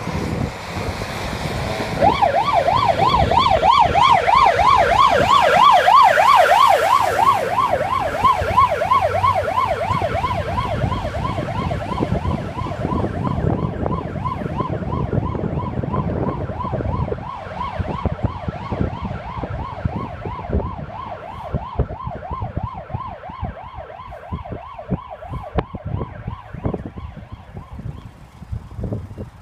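Fire engine siren wailing up and down fast, about four sweeps a second. It starts about two seconds in, is loudest at first, then fades as the tanker truck drives away. Wind buffets the microphone.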